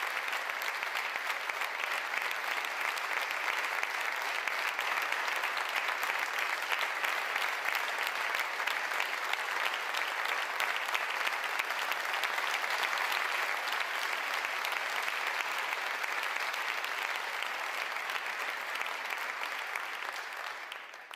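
Large audience applauding, a steady, sustained clapping that fades out at the end.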